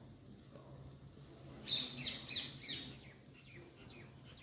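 A bird chirping: a quick run of several short, falling chirps about a third of the way in, over a faint low background.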